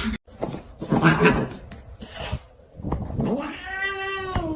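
A cat meowing: one long meow about three seconds in, rising and then falling in pitch.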